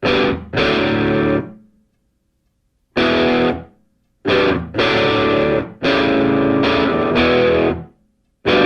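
Distorted electric guitar playing loud chord stabs that start abruptly and stop into short silences, about eight in all, with a pause of about a second after the first two.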